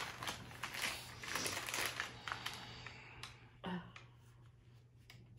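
Brown paper gift bag rustling and crinkling as it is handled, dense at first and thinning out to a few scattered crackles after about three seconds. A brief voice sound a little past halfway.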